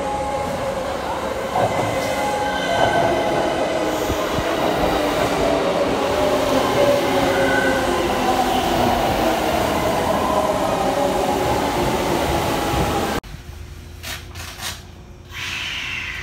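Kintetsu electric train pulling into an underground station, wheels rumbling and squealing with a pitched motor whine that falls as it slows, echoing in the tunnel. It cuts off sharply near the end to quieter platform ambience.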